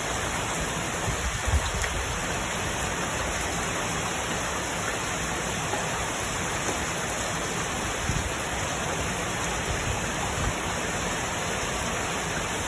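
Steady rain falling, an even hiss, with a few soft low thumps about a second and a half in and again near the end.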